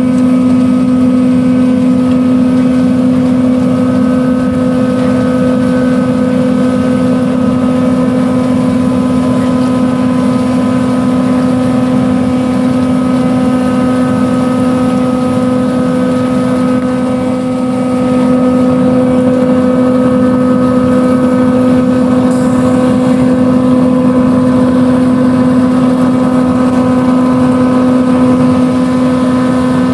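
Farm harvest machinery engine running at a constant speed, a steady loud drone with a strong even hum. The level dips slightly a little over halfway through and then picks back up.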